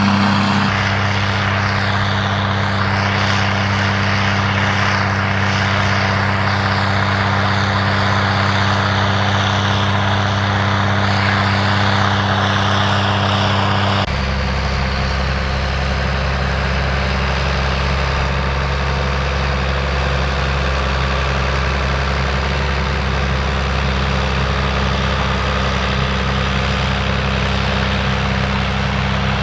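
Heavy tractor diesel engines running steadily under load in field work. About halfway through the engine note changes to a lower, steady tone from a Ford 8210's six-cylinder diesel working a power harrow.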